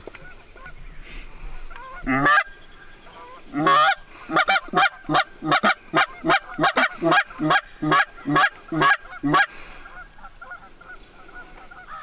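Canada goose call blown by a hunter: one honk, then a fast run of loud honks and clucks, about four a second, for some six seconds. The calling is meant to turn passing Canada geese back toward the front of the blind.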